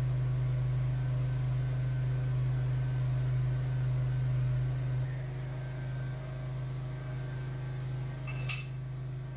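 A machine running with a steady low hum that drops slightly in level about five seconds in, with a single sharp click near the end.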